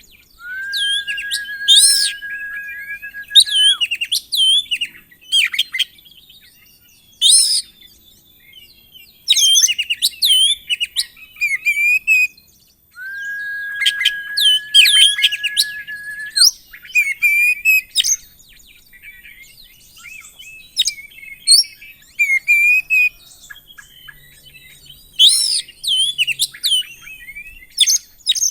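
Oriental magpie-robin singing a varied song of sharp chirps and quick sweeping whistles, twice holding one long steady whistle for about three seconds.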